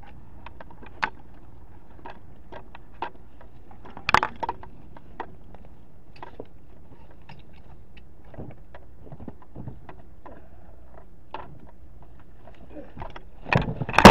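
Footsteps crunching through dry leaves, brush and debris, with scattered twig snaps and a sharper cluster of cracks about four seconds in. Near the end comes a sudden loud burst of rustling and knocking.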